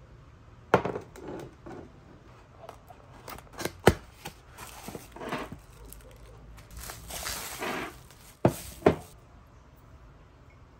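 Unboxing handling sounds: sharp knocks as a glass mug is put down and handled on a desk, one about a second in, one near four seconds and two close together near the end. In the middle there is a stretch of rustling as the second mug is pulled out of its cardboard box and plastic wrapping.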